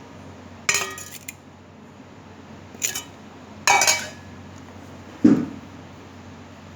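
A plate being taken out and handled among other dishes: a few separate ringing clinks and clatters about one, three and four seconds in, then a duller knock about five seconds in.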